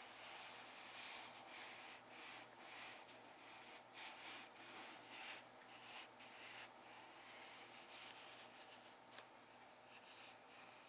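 Faint fingertips and fingernails rubbing and scratching on a cardboard box, in short repeated strokes that grow fainter after about seven seconds.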